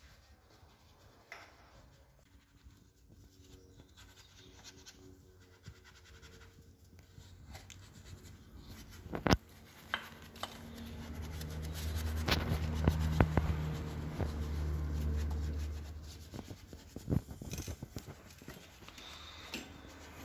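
Scratching and scrubbing of a brush being worked over a motorcycle's wheel, with a few sharp knocks. In the middle a low steady rumble rises for about five seconds and then fades.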